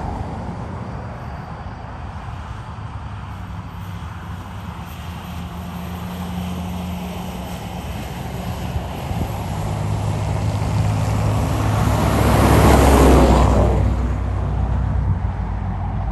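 2007 Ford F-550 dump truck's 6.0 L diesel engine pulling away and driving past, its engine note building steadily. About twelve seconds in, a vehicle passing close brings a loud rush of engine and tyre noise that fades after a second or two.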